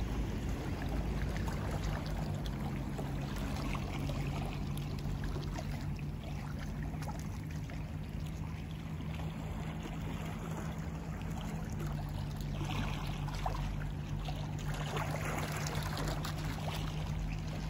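Small waves of a calm sea lapping and washing at the shore, the splashes swelling about two-thirds of the way in and again near the end, over a low steady hum.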